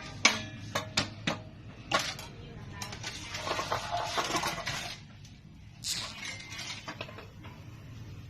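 Small metal parts being handled: four sharp metallic clicks and knocks in the first two seconds, a couple of seconds of rattling, and one more knock about six seconds in.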